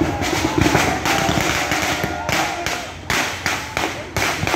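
Firecrackers going off in a rapid, irregular string of sharp cracks, several a second, over the voices of a crowd.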